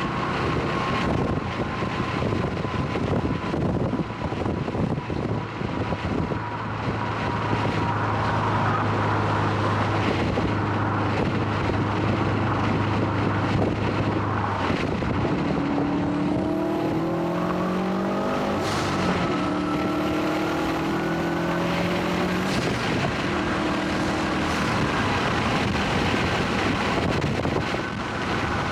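A Subaru WRX STI's turbocharged flat-four engine under way over steady road and wind noise. About halfway through, the engine pulls hard, its pitch climbing in several steps as it shifts up through the gears.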